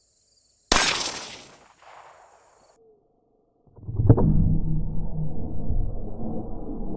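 A single .22 rifle shot, a sharp crack about a second in that fades over about a second. After a short silence, a loud low rushing rumble starts about four seconds in and carries on.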